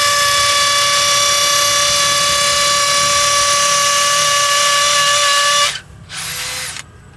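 DeWalt DCD805 brushless cordless hammer drill in hammer mode, boring a 12 mm masonry bit into a wall: a loud, steady, high-pitched buzz that stops about five and a half seconds in, followed by one short burst near the end.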